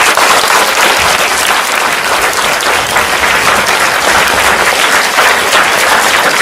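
An audience applauding: many hands clapping at once in a dense, steady spread of claps that starts just before and fades out just after.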